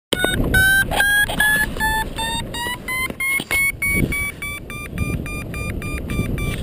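Paragliding variometer beeping, about three beeps a second at first with the pitch rising, then shorter, quicker beeps at about five a second: the sign of a climb in a thermal that is getting stronger. Wind noise rushes underneath.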